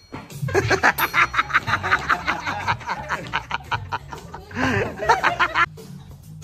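Quick, rapid laughter over music; the laughter drops away about a second before the end.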